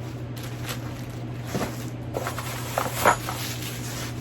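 Packaging rustling and being handled as an item is unwrapped, with scattered soft crinkles and a sharper knock about three seconds in, over a steady low hum.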